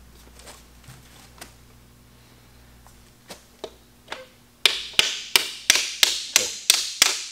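Hammer tapping a piston down through a ring compressor into the cylinder bore of a 5.9 Magnum V8 block. A few faint light taps at first, then from about four and a half seconds in a steady run of sharp taps, about three a second.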